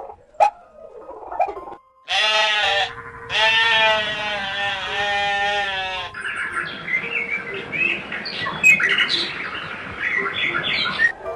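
An animal gives two drawn-out, wavering, bleat-like calls, a short one and then one lasting nearly three seconds. After that come about five seconds of many short, high bird chirps.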